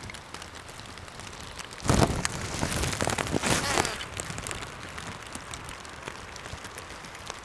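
Steady rain falling, with about two seconds of louder, close rustling and scraping noise a couple of seconds in.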